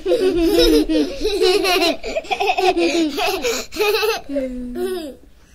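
Two young girls laughing hard together in high-pitched fits, dying down near the end.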